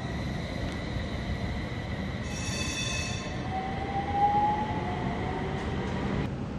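Utsunomiya Light Rail HU300 tram running away along street track. Its electric motor whine rises in pitch as it gathers speed, over a steady high tone that cuts off near the end, with a brief high squeal about two seconds in.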